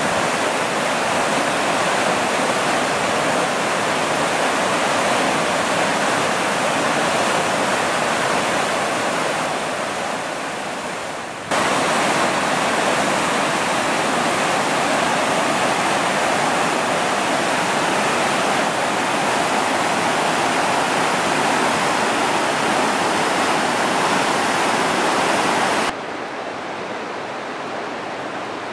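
Whitewater rapids of a forested mountain river rushing steadily. There is an abrupt cut about eleven seconds in. Near the end the sound drops suddenly to a quieter, duller rush.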